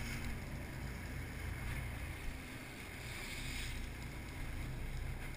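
Steady rumble of the 57-foot Bertram sportfishing boat's diesel engines running, with wind and water noise on the microphone.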